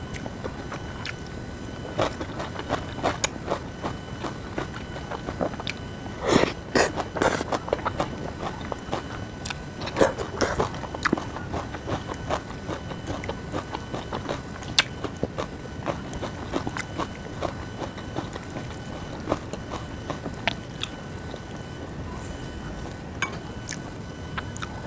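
Close-up eating sounds of Jjapagetti noodles and spring-cabbage geotjeori: chewing and biting with many small wet clicks, and a few louder bursts about six to seven seconds in and again around ten seconds.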